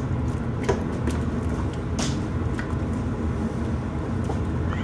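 Steady low hum and rumble of a running appliance, with a few light clicks about a second and two seconds in.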